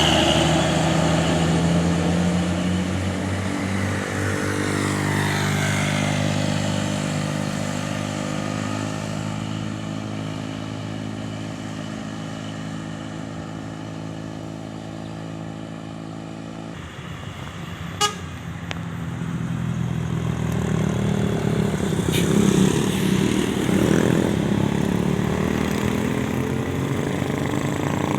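Indonesian buses passing with their horns sounding over the engine noise, the pitch sliding down in the first seconds and rising again in the second half. The sound changes abruptly about 17 seconds in, like a cut between two clips.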